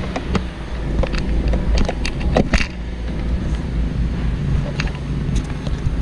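A 2007 Holden Astra's 1.8-litre four-cylinder engine running steadily at idle, heard from inside the cabin, with a few light clicks and knocks in the first few seconds. The engine is running lean from a vacuum leak, setting a P0170 fuel-system-lean code.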